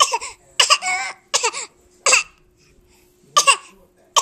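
A five-month-old baby giving short, voiced fake coughs, about five in the span, each a quick burst with a falling squeaky tail, one a little longer and wavering.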